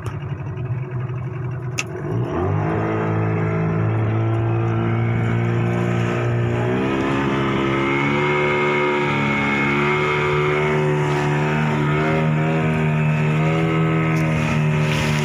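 Fishing boat's engine throttled up twice, its note rising about two seconds in and again about seven seconds in, then running steadily at speed. A sharp click comes just before the first rise.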